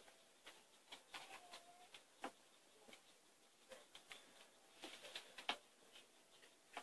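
Near silence with faint scattered clicks and rustling, a few sharper ticks among them, and a brief faint tone about a second in.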